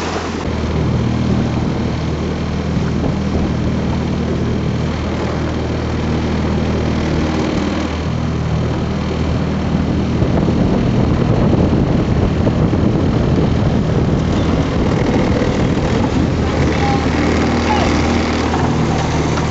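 Norman 20 motor cruiser's engine running steadily under way, with a constant rushing noise over its low note.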